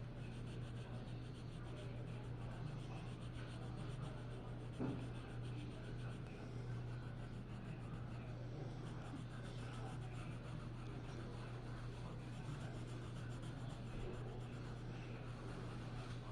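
Faint scratching of a drawing or colouring tool stroking across paper, over a steady low electrical hum. There is a single light tap about five seconds in.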